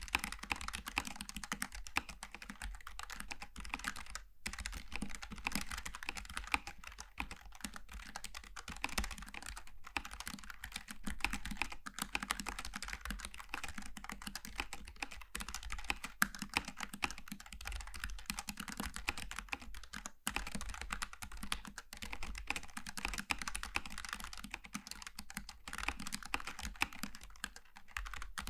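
Continuous fast typing on a Logitech G915 TKL low-profile mechanical keyboard with tactile switches, a dense stream of light key clicks with brief pauses near 4 seconds and 20 seconds in.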